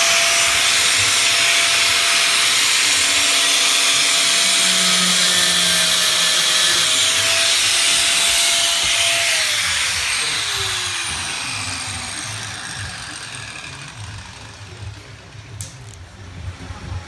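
Handheld angle grinder cutting with a steady motor whine, then winding down in pitch about nine seconds in as it is switched off. The cut makes room for the larger aftermarket intercooler.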